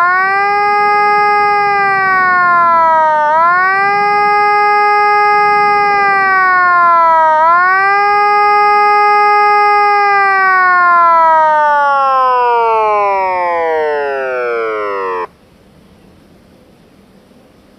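Electronic mobile warning siren sounding the German ABC-Alarm (CBR alert) signal: a loud steady tone that dips briefly in pitch twice, then winds down in a long falling glide and cuts off suddenly about fifteen seconds in.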